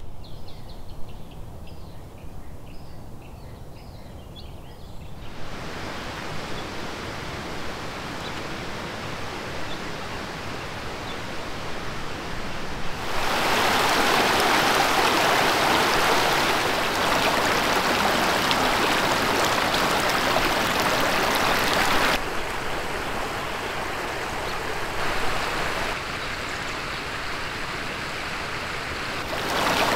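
Creek water rushing and splashing over rocks, a steady rushing sound that jumps in loudness at several cuts, loudest in the middle. Faint bird chirps in the first few seconds.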